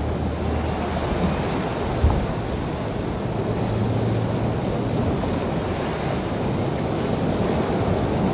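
Sea surf washing steadily on the shore, with a low rumble at times and a brief thump about two seconds in.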